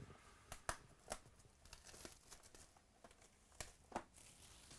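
Faint crinkling and tearing of the plastic wrapping on a box of trading cards as it is opened by hand. A few sharp crackles come about a second in and again near the end.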